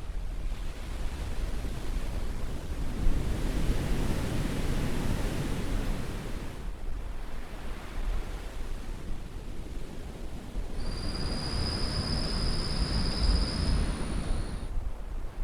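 Caribbean surf washing on a beach: a steady rushing noise that swells and eases in waves every few seconds. In the second half a high, steady whistling tone sounds for about four seconds.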